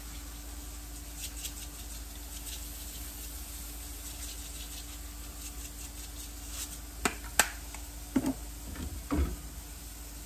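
Salad being finished in a glass baking dish: a faint light pattering in the first half as sesame seeds are sprinkled over the greens, then two sharp clicks of chopsticks against the glass about seven seconds in, followed by duller knocks and rustling as the seasoned leaves are tossed.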